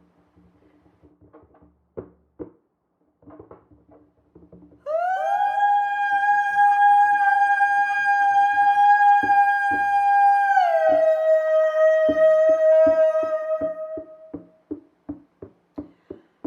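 A high sustained vocal tone, rich in overtones, scoops up into pitch, holds for several seconds, then slides down a step and fades. Under its fading end a hand drum begins a steady beat of about two or three strikes a second, and a few soft taps come before the tone.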